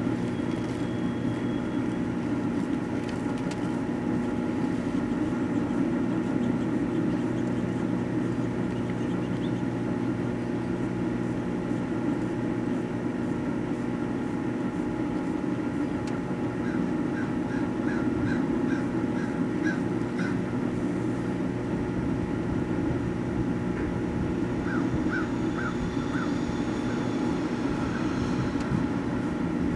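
Microwave oven running with a computer mouse heating inside: a steady electrical hum, with a few faint runs of short high ticks partway through.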